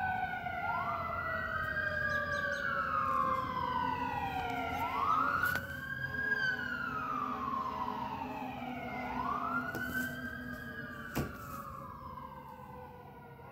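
Fire apparatus sirens wailing: one siren rising quickly and falling slowly, over and over about every four seconds, overlapping a second siren's sweeping wail, fading toward the end. A sharp click about eleven seconds in.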